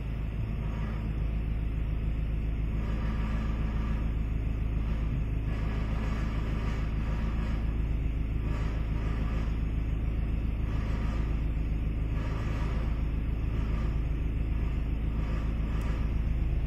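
Ford Escape running with a steady low drone, and a recurring noise about once a second over it: the abnormal noise the owner is recording.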